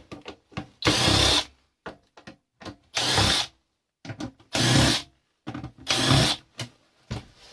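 A power drill run in four short bursts of about half a second each, with small clicks and rattles in between.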